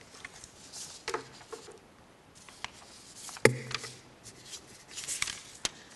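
Paper rustling and being shuffled at a lectern, close to the microphone, with scattered soft clicks and one sharp knock about halfway through.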